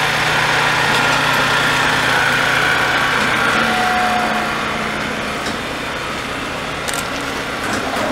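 Engine of the heavy-haul road transporter carrying a 485-series railcar, running steadily at low speed with a constant low hum.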